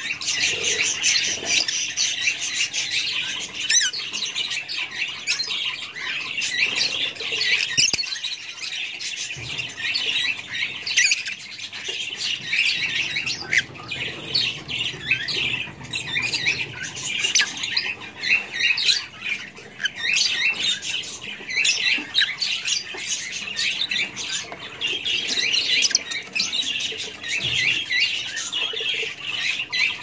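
Several Fischer's lovebirds chattering: a dense, unbroken stream of high-pitched chirps and squawks.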